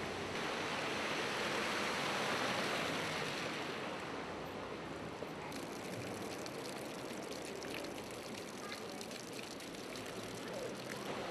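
Tyres hissing through water on a wet road for the first few seconds. Then rainwater gushes from a drainpipe outlet and splashes on the ground below.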